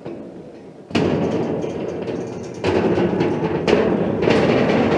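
Footsteps clanging on a steel platform and grated steel stairs, with knocks and rattles of the metal; the clatter starts abruptly about a second in and grows louder a little later.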